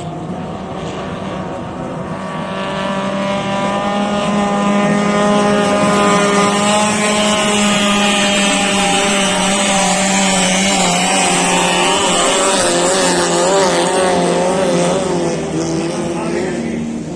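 Racing powerboat engines running hard, growing louder over the first few seconds, their pitch wavering up and down in the second half, then easing off near the end.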